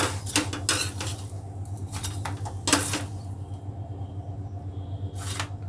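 Clatter of a utensil and hand against a non-stick frying pan as a roti cooking in it is pressed and then lifted out. There are a few sharp knocks and scrapes in the first three seconds and one more just before the end, over a steady low hum.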